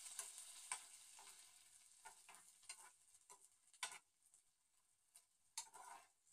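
Faint scraping and clicking of a steel spoon stirring in a nonstick frying pan, a handful of separate knocks against the pan. Under it, a soft sizzle of onions and chilies cooking in oil with a little water fades away over the first few seconds.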